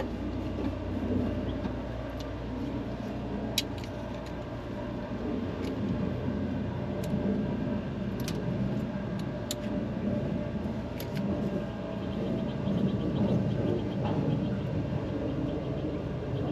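Car engine running steadily, with a few sharp clicks over it.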